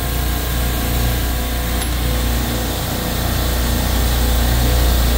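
Steady hum of running refrigeration machinery in a supermarket compressor room: a deep drone with several steady tones above it, unchanging throughout.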